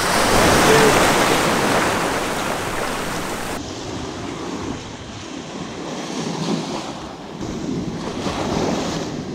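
Ocean surf in the shore break: waves washing and foaming over the sand, with wind buffeting the microphone. It is loudest in the first couple of seconds, then changes abruptly to a lower, duller wash of surf about three and a half seconds in.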